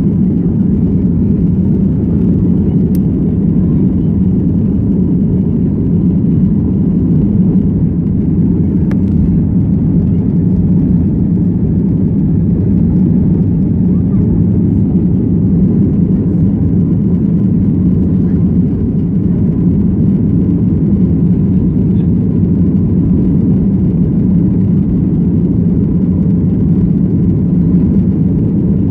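Airliner cabin noise: a loud, steady low rumble of engines and airflow, unchanging throughout.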